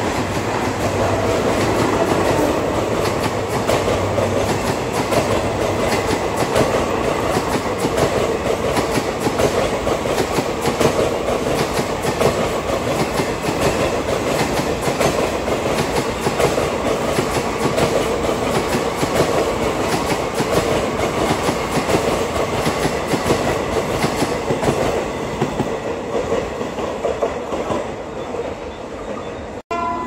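Long rake of Indian Railways ICF sleeper coaches passing at speed: a steady rumble with the continuous clatter of wheels over rail joints. The sound breaks off sharply just before the end, and a shrill locomotive horn starts right at the end.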